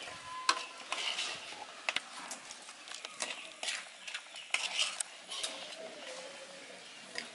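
A utensil stirring and scraping in a metal cooking pan, with irregular clinks and knocks.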